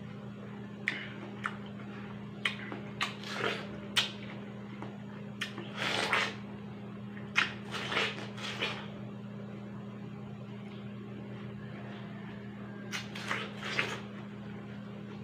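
Close-miked eating of juicy watermelon: wet bites, slurps and mouth clicks in clusters, with a lull of a few seconds before more bites near the end. A steady low hum runs underneath.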